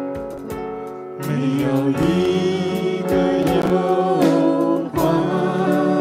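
Contemporary Christian worship song: a band playing steady accompaniment, with a sung melody of long, wavering held notes coming in louder about a second in.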